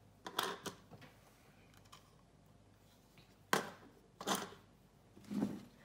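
A few short knocks and clicks of a plastic bowl lid and mixing bowl being handled on a kitchen countertop: a couple just after the start, then two sharper ones about three and a half and four seconds in, and a softer one near the end.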